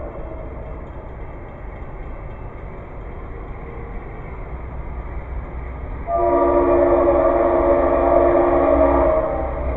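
Locomotive air horn blowing one long blast of several tones at once, starting about six seconds in and lasting about three seconds, over the low rumble of the approaching train.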